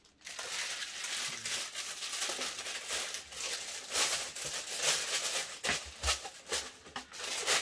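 Thin wax-paper wrapping sheet crinkling and rustling as it is handled and bunched up, with a couple of soft knocks around six seconds in.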